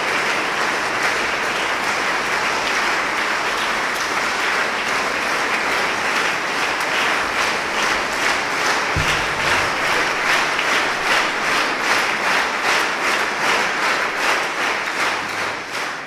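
Audience applauding in a church. About halfway through, the clapping settles into a steady, even rhythm.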